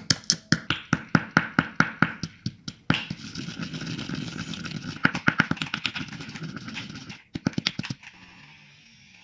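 Pestle pounding black cardamom seeds and rock sugar (mishri) in a mortar, about three strikes a second, then grinding them round for about four seconds, with a few more strikes a little after that.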